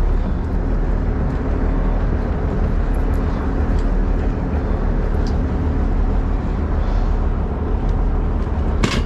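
Boat engine running with a steady low drone. A short sharp knock comes near the end.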